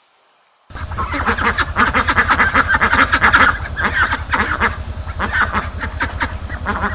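A flock of birds calling rapidly over one another, with a steady low pulsing hum underneath. The calls start suddenly just under a second in.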